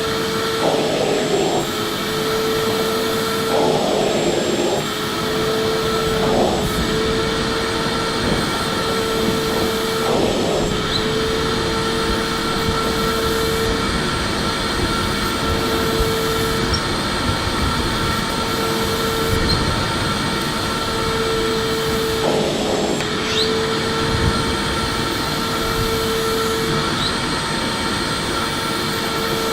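Electric vacuum cleaner running steadily, its whine breaking off briefly now and then.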